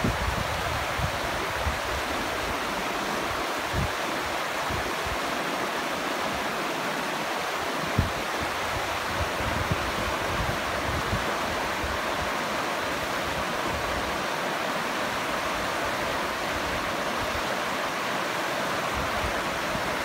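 Shallow, rocky mountain river rushing steadily over boulders and through riffles: a constant, even hiss of moving water. A few brief low thumps come through now and then, the strongest about eight seconds in.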